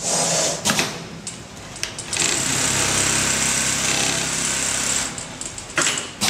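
Automatic pattern sewing machine stitching through a clear plastic template. It runs at a steady high stitching speed for about three seconds in the middle, with sharp mechanical clicks near the start and again near the end.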